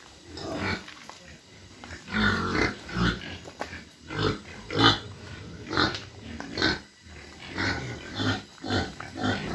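Pigs grunting: a string of short calls, about one or two a second.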